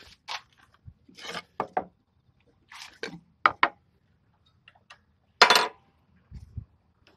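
Wooden blocks knocking and scraping against each other as they are handled and stacked: a string of short knocks and clatters, the loudest about five and a half seconds in, followed by a dull thud.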